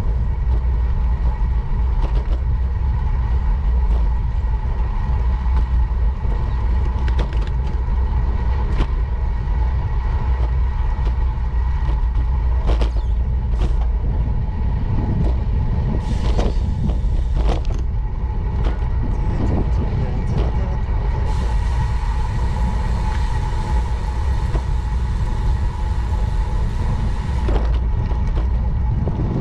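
Riding on a bicycle: wind buffeting the bike-mounted camera's microphone together with tyre and road rumble, a steady low roar with scattered clicks and rattles from bumps in the pavement. A thin steady tone sits underneath, and a brief stretch of extra hiss comes about two-thirds of the way in.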